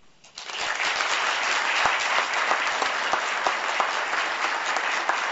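An audience applauding, the clapping rising quickly about half a second in and then holding steady as a dense patter of many hands.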